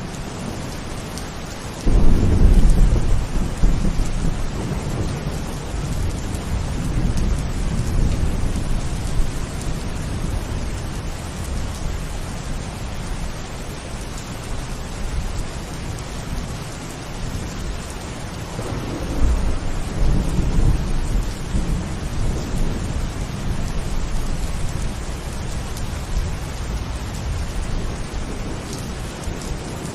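Steady heavy rain with two long rolls of thunder: the first breaks in suddenly about two seconds in and rumbles for several seconds, the second rolls in about two-thirds of the way through.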